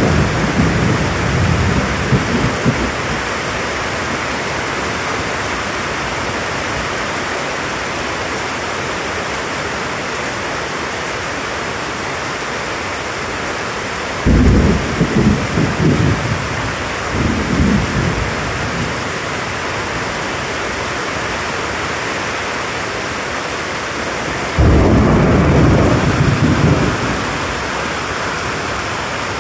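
Heavy tropical rain falling steadily, with thunder rumbling over it: one peal dying away at the start, another about halfway through, and a third near the end.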